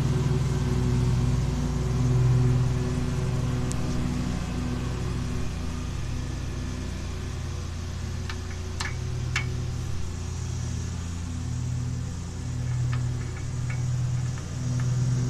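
Lawn mower engine running steadily nearby, its hum swelling and fading every second or so. Two sharp metal clicks come about nine seconds in, as a hand works at the exhaust manifold bolt holes.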